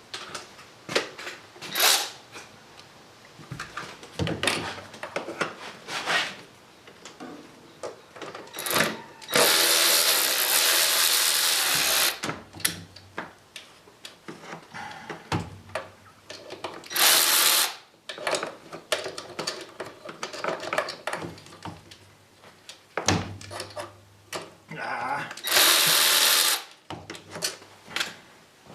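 Cordless power drill/driver running in three short bursts, the longest about two and a half seconds, as bolts on the engine's inlet manifold are undone. Clicks and knocks of tools and parts in between.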